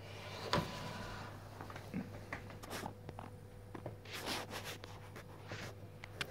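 A low steady hum, with faint rustles and scattered clicks of a handheld phone being moved.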